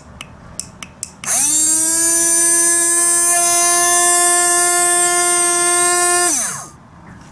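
Small motor of a portable USB-rechargeable blender, running with its jar empty. After a few light clicks of its button, it spins up quickly to a steady whine, runs for about five seconds, then winds down with its pitch falling.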